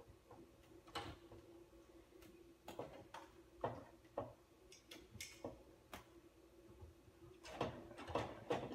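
Scattered clicks and light knocks of metal parts being handled as the mesh shield plate is fitted onto an iMac G3, coming closer together near the end, over a faint steady hum.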